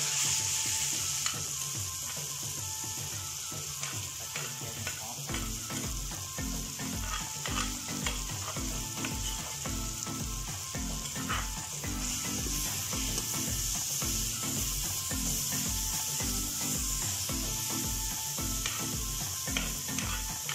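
Thai curry paste of pounded chillies, shallots, garlic and lemongrass sizzling steadily in a hot wok as it is fried, with a metal spatula scraping and clicking against the pan now and then.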